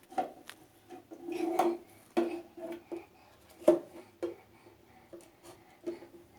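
A washing machine being handled: irregular knocks, taps and rubbing on its body, each knock ringing briefly at the same pitch. The loudest knock comes a little past the middle.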